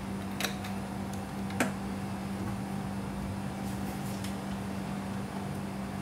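A steady low mechanical hum that holds one pitch. Two light clicks from a bottle being handled break through it, about half a second in and again at a second and a half.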